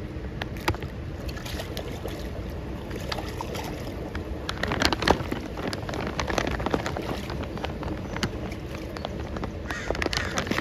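Water splashing and sloshing as a crowd of hatchery fish churn the surface of their pond, with irregular sharp splashes, the loudest about five seconds in.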